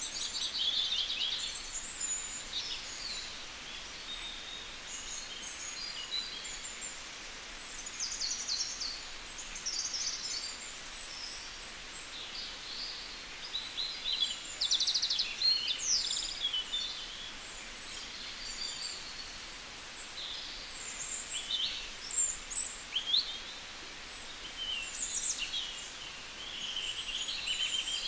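Small birds chirping and trilling, many short calls in quick succession from several birds, over a steady faint hiss of outdoor background noise.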